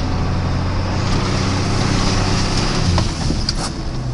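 Ford four-wheel-drive pickup truck's carbureted engine running as it drives slowly through snow, heard from inside the cab, with a steady low engine note under road and tyre noise. The engine eases off about three seconds in, followed by a couple of sharp clicks.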